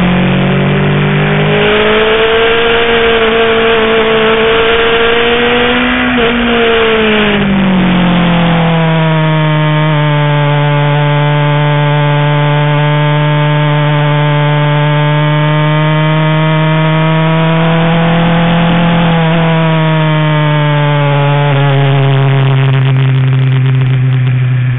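BMW S1000RR's inline-four engine, heard on board while riding. The revs rise over the first few seconds, break briefly about six seconds in, fall away around eight seconds, then hold a steady pitch, stepping slightly lower near nineteen seconds.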